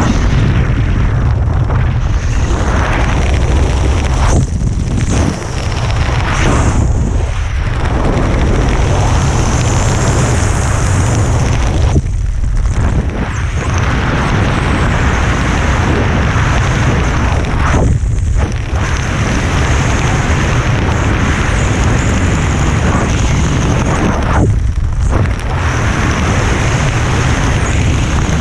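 Wind buffeting the camera's microphone during a parachute descent under an open canopy: a loud, steady rumbling roar that eases for a moment several times.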